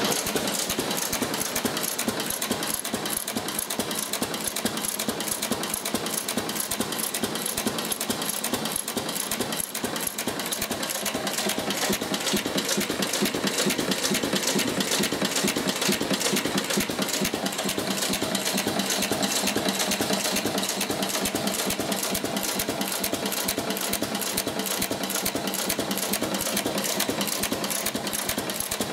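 6 hp Cooper Stover type KC stationary engine running steadily, with a quick, even clatter.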